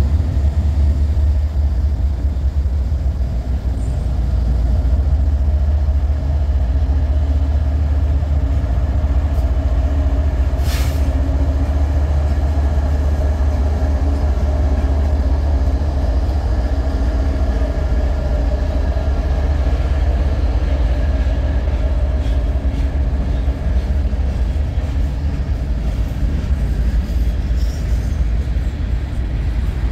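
BNSF diesel freight locomotive passing close with a steady deep engine rumble, then covered hopper cars rolling by. A brief sharp high sound cuts in once about eleven seconds in.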